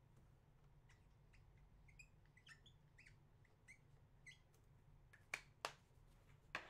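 Near silence with faint scattered clicks and a few short, high chirps, then three sharper clicks in the last second and a half.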